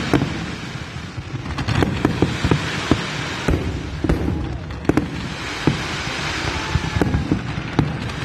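A fireworks display going off: many sharp bangs and pops at irregular intervals, over a steady crackling hiss.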